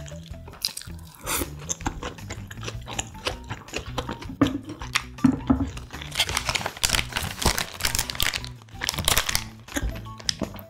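Close-up eating sounds: a paper sandwich wrapper crinkling and a toasted sandwich being bitten into and chewed, busiest in the second half. Soft background music plays underneath.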